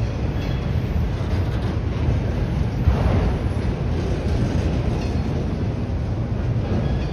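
Freight train's autorack cars rolling past at low speed: a steady low rumble of steel wheels on rail, with one brief louder clank about three seconds in.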